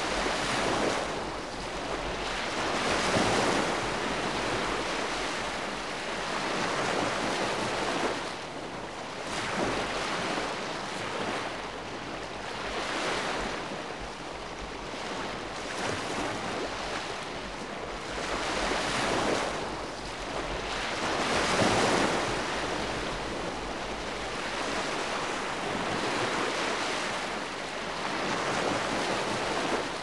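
Calm sea washing in gentle waves, a steady wash of water that swells and eases every three to four seconds.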